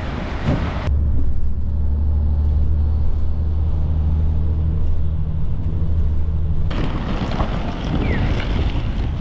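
Steady low engine drone inside a moving bus. It cuts in about a second in and stops abruptly before seven seconds. Before and after it comes open street noise with traffic.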